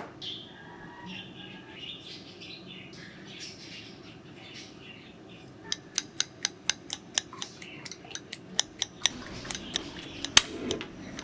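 A run of sharp, irregular clicks, about three or four a second, starting about halfway through, after a stretch of faint small handling sounds.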